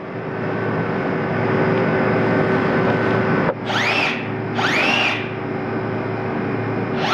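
Steady machine noise with a constant hum, and a motor whining up in pitch and back down three times, the way a small power tool spins up and slows. The whines come about three and a half seconds in, a second later, and near the end.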